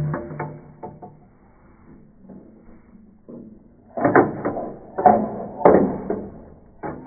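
Marble rolling and clattering through a plastic marble run, a string of knocks as it drops through the tubes and pieces. A few knocks at the start, quieter for a couple of seconds, then a quick run of clattering knocks from about four seconds in.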